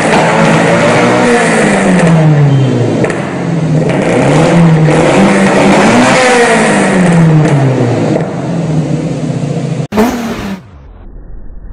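Modified Toyota sedan's engine revved hard again and again through a loud aftermarket exhaust, its pitch climbing and falling in waves, with occasional pops from the tailpipes as they spit flames. About ten seconds in it cuts sharply to a quieter engine running.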